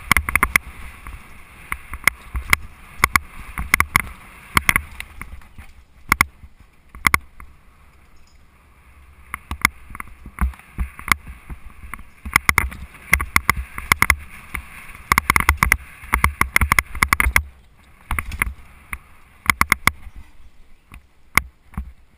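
Mountain bike rolling fast down a rough dirt trail: frequent sharp clatters and knocks as the bike and camera jolt over bumps, over a rushing of wind on the microphone and a deep rumble. It settles briefly about a third of the way in, then clatters again in quick runs.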